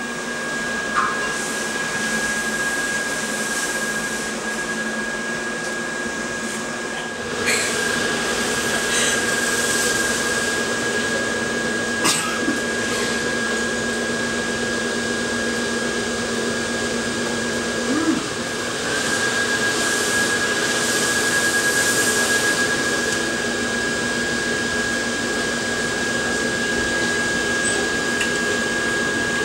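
Steady whirring of an inflatable lawn ornament's electric blower fan, with a high steady whine over it, a little louder from about seven seconds in. A couple of short knocks sound about twelve and eighteen seconds in.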